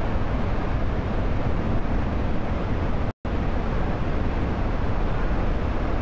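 Steady rush of a large waterfall in full flood, heavy in the low end, heard from a distance. The sound drops out completely for a moment about three seconds in.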